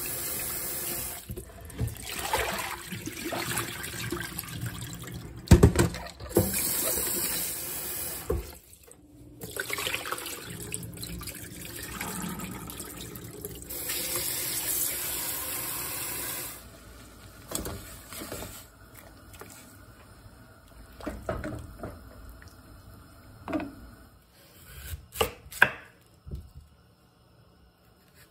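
Tap water running into a stainless steel bowl of raw beef short ribs in a sink as they are rinsed by hand, the stream breaking off briefly around nine seconds in. The water stops a little after halfway, leaving a quieter stretch with a few scattered knocks and clicks.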